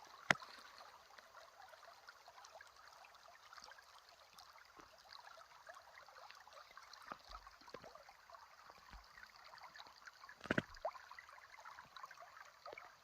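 Small creek trickling and babbling over rocks, faint and steady, with a couple of sharp clicks just after the start and about ten seconds in.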